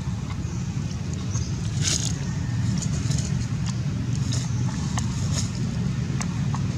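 Steady low rumble, with scattered light clicks and a few brief rustles, the loudest about two seconds in.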